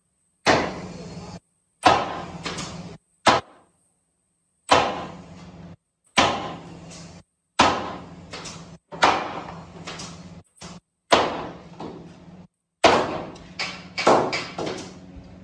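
A dozen or so sharp wooden knocks, about one a second and some in quick pairs, each with a short ringing decay, as the rails and posts of a mulberry-wood door frame are knocked together at the joints.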